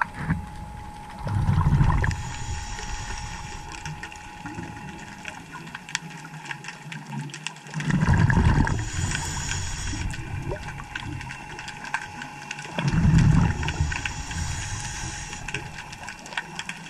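Underwater recording of a scuba diver's regulator breathing: three loud rumbling surges of exhaled bubbles about every five to six seconds. Each is followed by a fainter high hiss.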